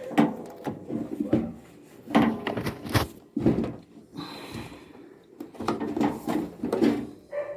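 Irregular knocks, clunks and scrapes of washing-machine parts being handled and moved during disassembly.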